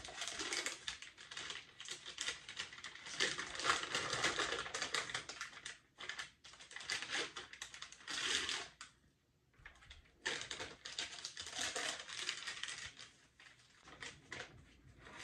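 MRE packaging crinkling and rustling as the plastic flameless-heater sleeve and the foil meal pouch are handled, in dense crackly runs with brief pauses about six and nine seconds in.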